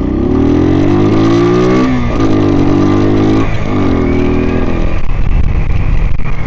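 Suzuki TU250X's single-cylinder engine accelerating away from a stop. The revs climb, drop at an upshift about two seconds in and again about a second and a half later, then hold fairly steady. It is heard through a mic inside the rider's helmet.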